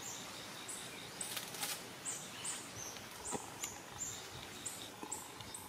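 Forest ambience with a rapid series of high, two-step chirping calls, about three a second, each dropping slightly in pitch. A few faint knocks and rustles come through, one a little past the middle.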